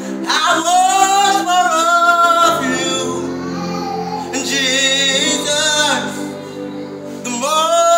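A man singing a gospel song in full voice, in phrases of long held notes, over a steady backing of held chords.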